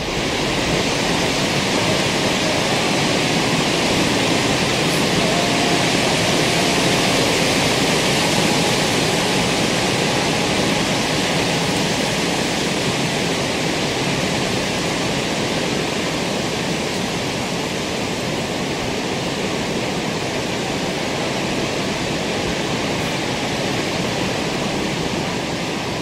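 Steady rush of running water, an even hiss with no break.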